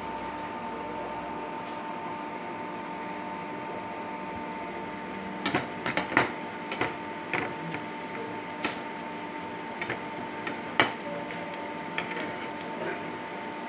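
Sliced onions frying in ghee in a steel pan, a steady sizzle. From about five seconds in, a perforated steel spoon clinks and knocks against the pan a dozen or so times as the onions are stirred.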